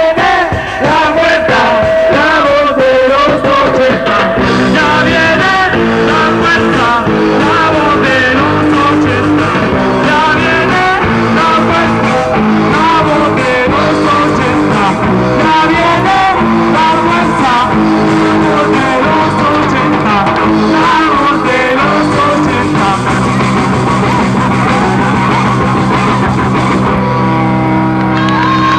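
Live band playing a rock song with amplified guitar and singing.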